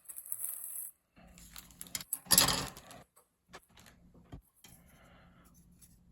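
Small tin wind-up toy parts being handled: rustling and light metal clinks, with a louder scrape about two seconds in and a couple of sharp clicks after it.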